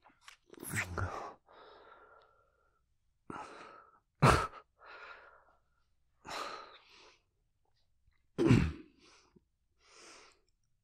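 A man's breathing and sighs in several short separate breaths, with a sharper, louder sound about four seconds in and another louder breath about eight and a half seconds in.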